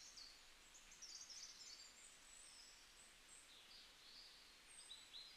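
Near silence, with faint, high bird chirps scattered through it in the background.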